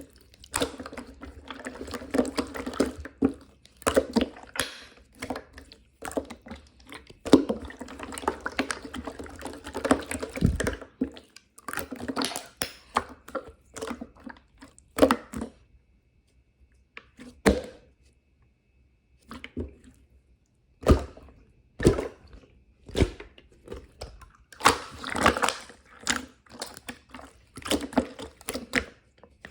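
Irregular wet clicking, squishing and knocking of something soft and wet being handled, with a short pause about halfway through.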